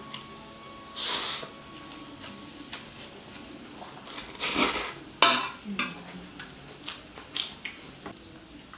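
A person slurping up forkfuls of instant mi goreng noodles and chewing, with a metal fork clinking and scraping on a ceramic plate. Two slurps, a short one about a second in and a longer, louder one around four and a half seconds in, then a sharp clink and scattered small smacks and clicks.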